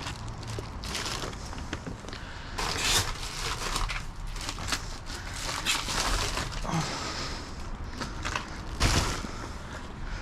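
Rustling and crinkling of bags with scattered knocks and clunks as a dumpster full of discarded produce is rummaged through; the louder knocks come about 3 s in and near 9 s.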